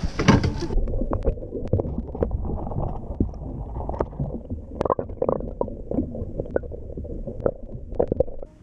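Underwater sound from a camera submerged in a boat's bait well full of baitfish: a brief bright splash as it goes in, then a muffled rumble of churning water, broken by many irregular knocks and clicks.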